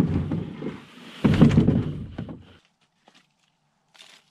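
A canoe being rolled over on the ground: hollow thunks and scraping of the hull, the loudest about a second and a half in, stopping abruptly about two and a half seconds in. After that only a few faint small clicks and rustles.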